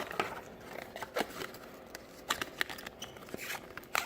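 Irregular clicks, taps and rustles of small accessories and their packaging being handled and taken out of a box.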